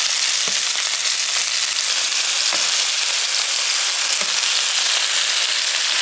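Chicken meatballs frying in a pot, sizzling steadily, with a few soft pops.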